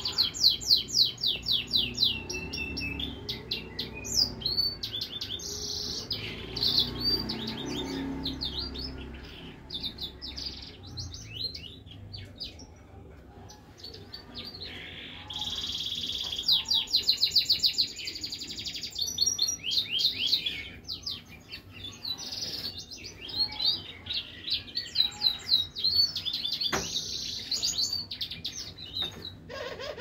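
Hybrid siskin mule finch singing, a fast twittering song of rapid high trills and quick runs of repeated notes, delivered in bursts with short pauses and a longer lull about halfway through.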